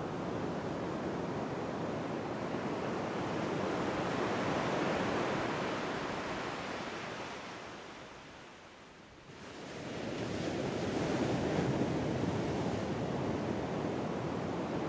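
Storm wind and surf sound effect: an even rushing noise that swells and fades, sinking low about eight seconds in before building up again.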